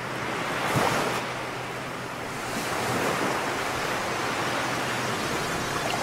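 Ocean surf: a steady rush of waves, swelling about a second in and again around three seconds.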